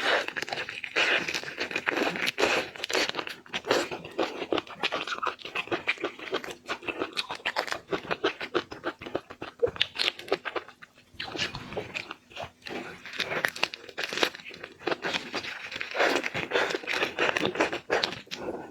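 Close-miked crunching and crackling of shrimp being eaten, with dense crisp clicks and chewing and a brief lull about eleven seconds in.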